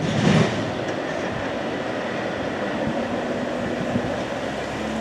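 Intermodal container train's cars rolling past: a steady rumble of wheels on the rails, with a brief louder burst in the first half second.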